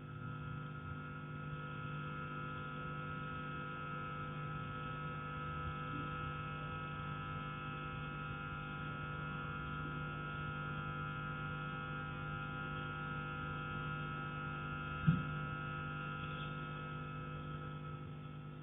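A steady electrical hum made of several level tones, with a single sharp knock from the attic about fifteen seconds in.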